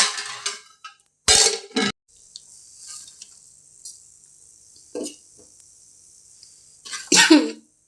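Kitchen vessels and utensils being handled: two loud clattering bursts, about a second in and near the end, with a short knock in between.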